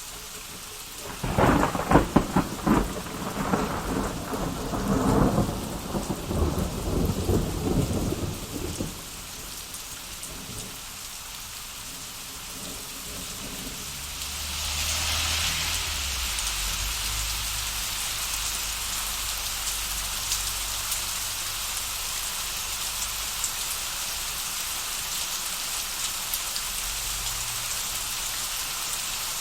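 Thunderstorm: a close thunderclap crackles and rumbles for several seconds near the start, over steady rain. The rain then grows heavier about halfway through, with a low thunder rumble underneath for several more seconds.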